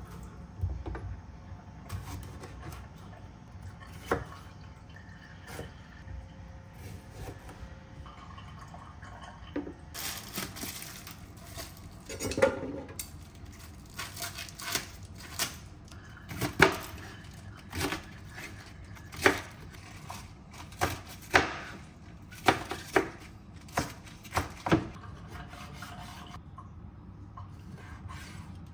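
Kitchen clatter: irregular knocks and clinks of utensils and dishes, sparse at first and then coming about once a second through the middle and latter part.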